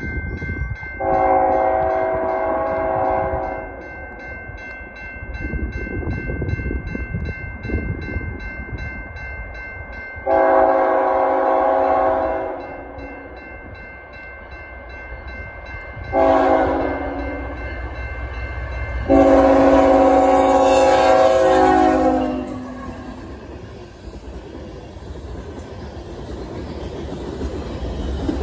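GE ET44AC freight locomotive's air horn sounding the grade-crossing signal of four chords: long, long, short, long. A crossing bell rings steadily under the first three. After the last blast the locomotive and loaded hopper cars rumble past on the rails, growing louder near the end.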